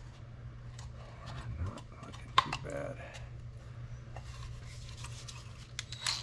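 Small plastic parts being handled with light clicks and taps over a steady low hum, one sharper click about two and a half seconds in; the angle grinder is off.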